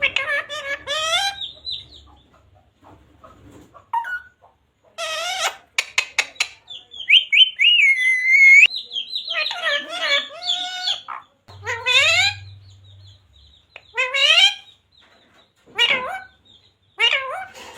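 Pet parrot calling and chattering in short bursts with fast pitch wobbles, with a longer sliding whistle about seven seconds in. A few sharp clicks come about five seconds in.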